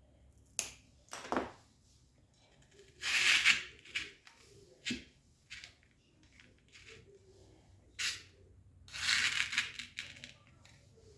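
Craft materials being handled: two rustling, crinkling bursts, one about three seconds in and a longer one about nine seconds in, between several light sharp taps and clicks.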